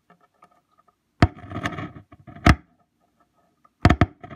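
Loudspeaker popping as a 9-volt battery lead is touched to its terminal for a polarity check: a sharp click about a second in, crackling while the contact is made, another click, then a quick double click near the end.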